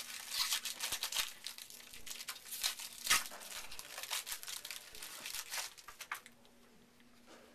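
Crinkling and rustling of trading-card packs and cards being handled and opened, with a sharp snap about three seconds in; the crackling stops about six seconds in.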